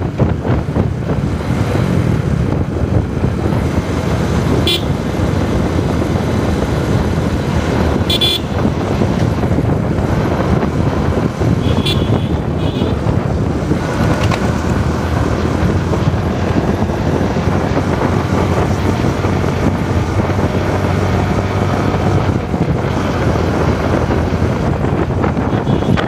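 Motorcycle on the move, heard from the rider's seat: a steady mix of engine and road noise, with three short high-pitched toots from nearby traffic in the first half.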